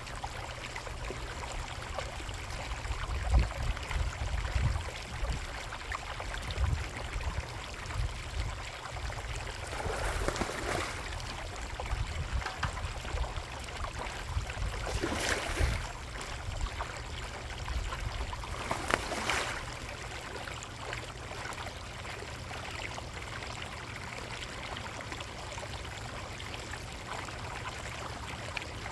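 Koi pond water trickling steadily, with low thumps between about three and nine seconds in and three brief louder swishes about ten, fifteen and nineteen seconds in.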